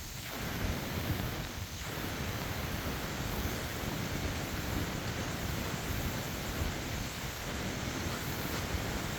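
Steady rushing hiss of rain, with wind buffeting the microphone.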